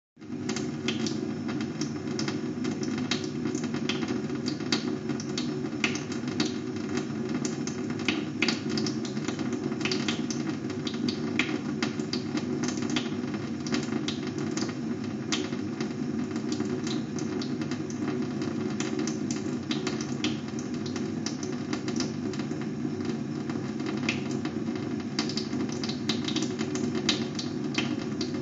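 A water tap running steadily: a constant rush of flowing water with frequent, irregular small splashing clicks.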